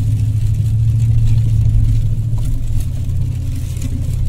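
Car driving at highway speed, heard from inside the cabin: a steady low engine and road drone with faint tyre hiss, shifting slightly about three seconds in.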